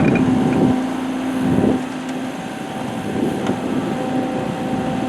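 Excavator's diesel engine running under load as the bucket teeth dig and break up hard lamproite ore. It is heavier for the first couple of seconds, then eases.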